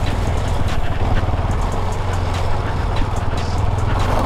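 KTM 250 Adventure's single-cylinder engine running steadily while riding, with a few short clicks and knocks scattered through.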